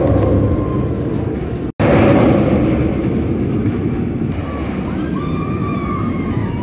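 Bolliger & Mabillard mega coaster train running along its steel track close by: a loud, even rumble that cuts out for an instant just under two seconds in, comes back and slowly eases. Faint wavering high tones come in over it in the second half.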